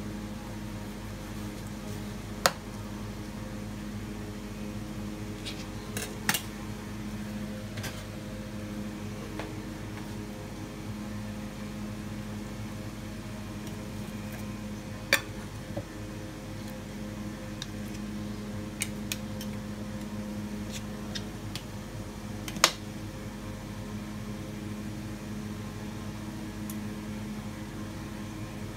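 Steady low hum of a kitchen appliance motor or fan, with a few sharp clicks and knocks of a metal utensil against a plastic cutting board and glass dish while mango is peeled and sliced. Four louder knocks are spread through, with a cluster of light ticks about two-thirds of the way in.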